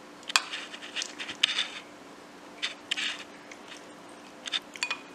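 Metal spoon scraping and clinking against dishware while scooping and spooning chili fish sauce, in several short clusters of scrapes.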